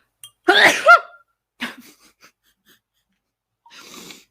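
A woman sneezing: one loud, voiced sneeze about half a second in, then a much shorter sound about a second later, and a soft breathy sound near the end.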